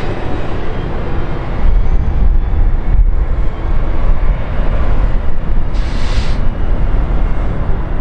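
Boeing 777-300ER's GE90 jet engines making a deep, steady rumbling roar as the airliner touches down and rolls out on the runway. The roar swells about two seconds in, and a short hiss comes about six seconds in.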